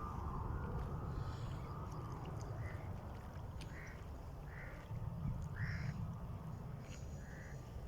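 A bird calling in a run of short, evenly spaced calls, about six in a row starting a few seconds in, over a steady low rumble.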